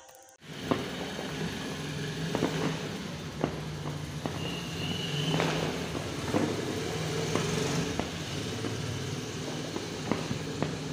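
Outdoor night ambience: a steady low hum under a haze of noise, with scattered sharp clicks and a brief high whistle about four and a half seconds in.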